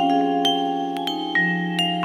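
Malletech vibraphone played with four yarn mallets: single metal-bar notes struck about three times a second, each ringing on and overlapping the others over sustained low notes.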